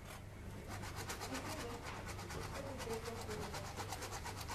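Surgical saw cutting through the leg bone during a guillotine amputation, a rapid, even rasping rhythm that starts under a second in.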